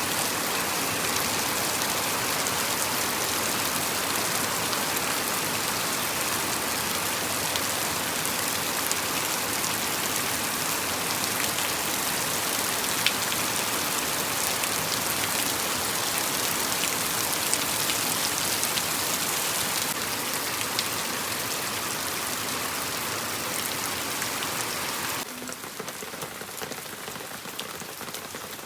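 Steady rain falling, a dense even hiss with scattered drop ticks; it becomes noticeably quieter about 25 seconds in.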